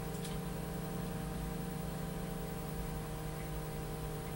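Steady electrical hum with even hiss, unchanging throughout: the background noise of a worn videotape played back and re-recorded off a screen.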